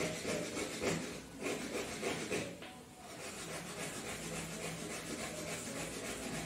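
A sandalwood stick being rubbed on a grinding stone to make chandan paste: repeated back-and-forth rubbing strokes.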